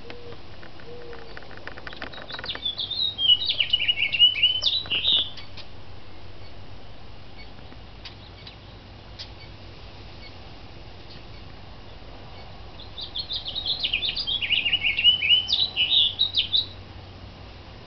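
A songbird sings two long, rapid warbling phrases, each about three seconds long and about ten seconds apart, with a faint steady low hum in between.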